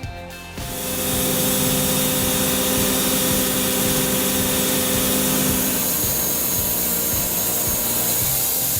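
Powered machine saw cutting through wood: a loud, steady noise with a motor hum beneath it that drops away about six seconds in.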